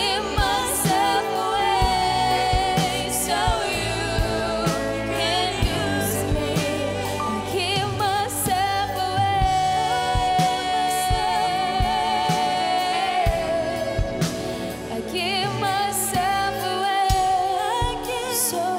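Live worship band playing a slow gospel-style song, with a woman singing long held notes that waver in vibrato over drums, cymbals and sustained band accompaniment.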